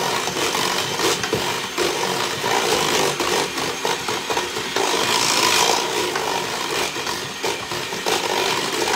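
Electric hand mixer running steadily, its beaters churning through pumpkin bread batter in a stainless steel bowl as an egg is beaten in.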